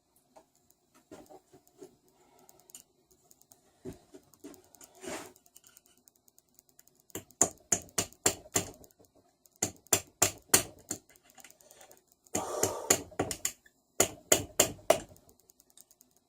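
Sharp metal clicks and taps of a hand tool working the flywheel key out of the crankshaft of a Tecumseh small engine. Faint at first, they come in quick loud groups of several a second from about halfway, with a brief scrape in between.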